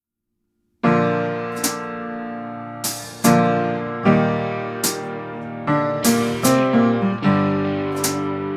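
Background music: sustained electric piano chords with sharp, bright percussion strokes, starting about a second in after a brief silence.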